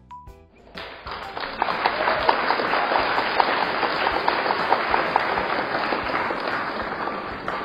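A crowd applauding, starting about a second in and tailing off near the end.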